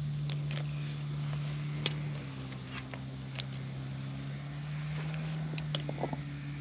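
A steady low engine-like hum, shifting slightly in pitch a couple of times, with a few sharp clicks from handling gear.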